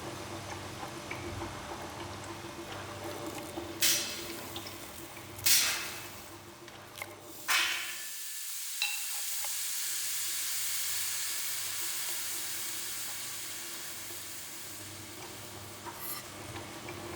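Kitchen ambience: a steady appliance hum under three sharp clatters a second or two apart, then a long hiss in the high end that swells and slowly fades, with a few light clicks near the end.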